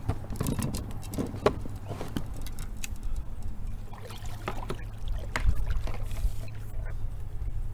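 Scattered knocks, clicks and shuffles of a plastic sit-on-top kayak and the fishing gear aboard it as a person settles into the seat.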